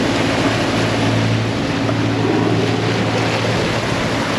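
A boat's motor running steadily with a low hum, under the rush of wind and water.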